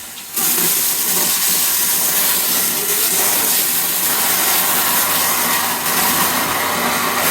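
Henry canister vacuum cleaner running with a steady, loud rushing hiss.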